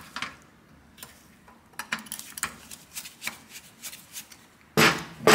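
Flat-blade screwdriver clicking and scraping against a Piaggio SKR 125 scooter carburettor while its jets are being unscrewed, in scattered small metallic ticks. A louder burst of clattering noise comes near the end.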